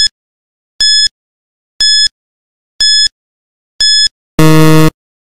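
Quiz countdown-timer sound effect: five short, high electronic beeps, one a second, then a longer, lower buzzer about four and a half seconds in that marks time running out.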